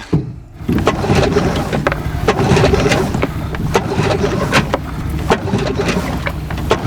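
Outboard boat motor running steadily, coming in about two-thirds of a second in, with sharp clicks and knocks over it.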